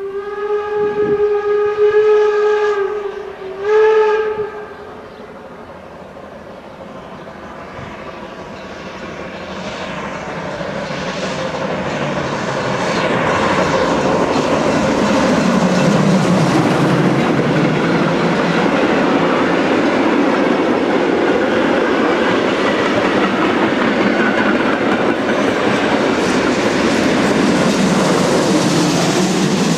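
A steam locomotive's whistle gives one long blast, then a short one. A steam-hauled train then approaches, getting louder, and passes close by with loud, steady running and exhaust noise.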